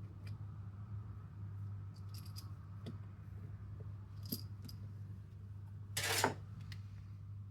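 Small metal parts of an airsoft gearbox being handled during assembly: a few light clicks and clinks spread out, then a brief, louder scrape about six seconds in. A steady low hum runs underneath.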